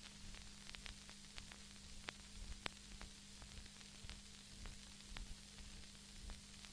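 Faint hiss and scattered irregular crackles and pops of an old film soundtrack, over a low steady hum.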